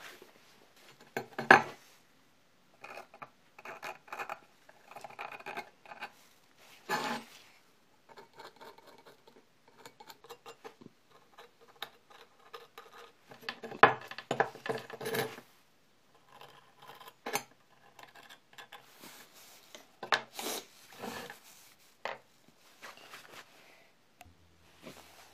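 Steel pieces and hand tools being handled on a plywood workbench: irregular clanks and knocks as metal parts are picked up and set down, with rubbing and scraping between and a few louder knocks spread through.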